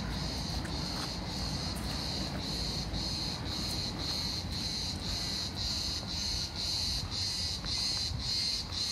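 Cicadas singing in chorus, a steady high buzz pulsing about twice a second.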